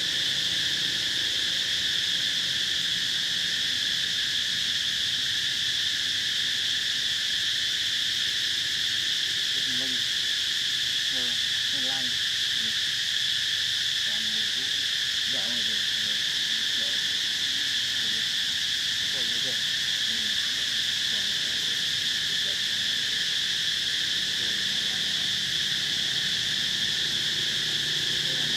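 Tropical insect chorus, a steady high-pitched drone with no break.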